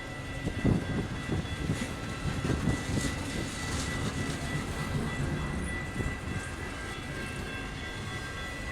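Long intermodal stack train's cars rolling past, with uneven knocking and rumbling from the wheels on the rails and a steady high-pitched tone over it.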